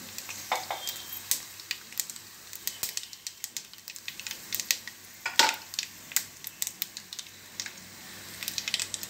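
Tempering of dried red chillies, curry leaves, dal and seeds sizzling in hot oil in a kadai, crackling with irregular sharp pops. One pop about five and a half seconds in is louder than the rest. This is the tempering being fried well before the vegetables are added.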